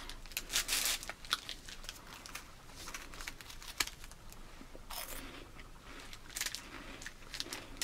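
Plastic snack wrapper crinkling and a crisp wafer cookie filled with coconut cream being bitten and chewed with crunching, in short irregular crackles.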